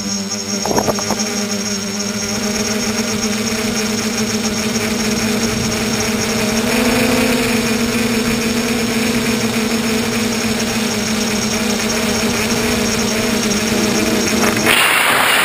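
A tricopter's three electric motors and propellers drone steadily. The pitch rises briefly a little under halfway through. A short clatter comes about a second in, and a brief loud rushing noise near the end.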